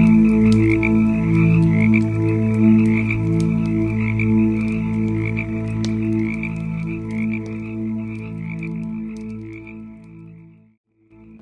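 Campfire crackling in scattered sharp pops, layered with a pulsing frog chorus and steady low tones. The sound fades and drops out for a moment near the end, then returns.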